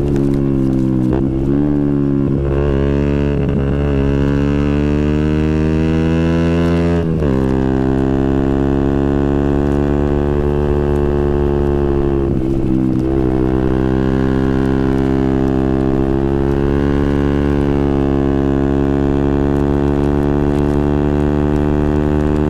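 Single-cylinder four-stroke engine of a 2012 KTM Duke 125 running loud through a Scorpion exhaust with the dB killer removed, heard from on board while riding. The engine note holds steady, with brief dips where the revs fall and pick up again, around one, seven and thirteen seconds in.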